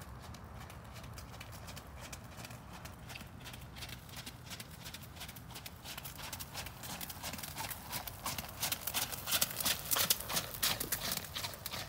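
A horse's hooves striking wet sand and gravel arena footing in an even trotting rhythm, growing louder as the horse comes close and loudest near the end.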